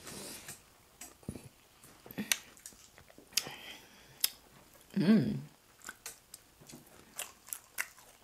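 Close-miked eating sounds of two people eating fried pork with their fingers: chewing and lip smacking with many short, sharp, wet clicks. A brief hum of a voice about five seconds in.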